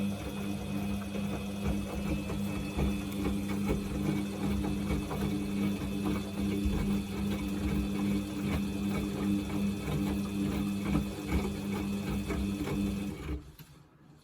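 Samsung washing machine running, its drum motor giving a steady hum with irregular knocks and rustling from the drum. It stops about 13 seconds in and the sound dies away quickly.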